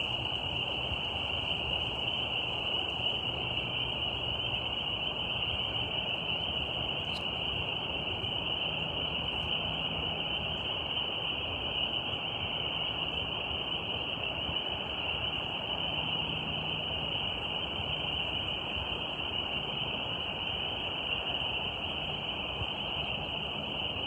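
Steady nature ambience: an unbroken high-pitched drone over a low, even hiss, with one faint click about seven seconds in.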